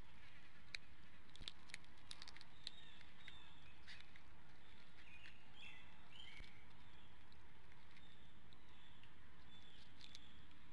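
Outdoor ambience at a bald eagle nest: a steady hiss, a few sharp clicks in the first three seconds, and a short run of high chirping calls around the middle.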